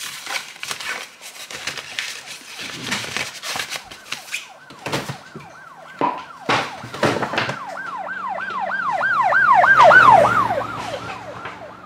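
A siren sweeping rapidly up and down, about three sweeps a second. It comes in faintly near the middle, grows to its loudest a little before the end, then fades. It is preceded by a few seconds of clicks and rustling.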